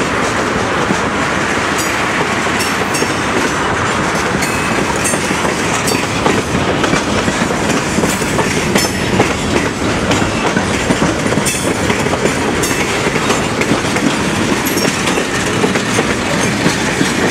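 Freight train tank cars and covered hopper cars rolling past close by: a steady, loud noise of steel wheels on the rails with irregular clicks and clacks as the wheels cross rail joints.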